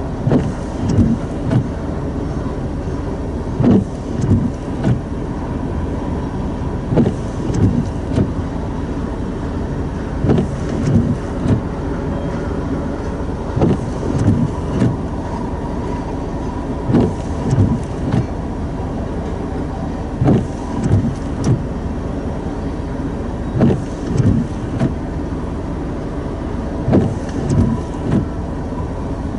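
Freight train rolling slowly past, its car wheels knocking over a rail joint in clusters of two to four every few seconds, over a steady rumble.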